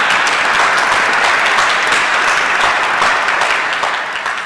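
Audience applauding: many people clapping at once, the clapping starting to die away near the end.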